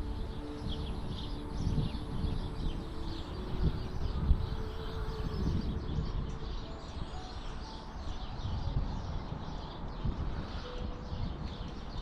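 Small birds chirping and twittering in quick short calls, over a low rumble.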